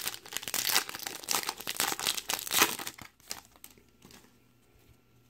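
Baseball card pack's plastic foil wrapper crinkling and tearing as it is pulled open, a dense run of crackles that stops about three seconds in.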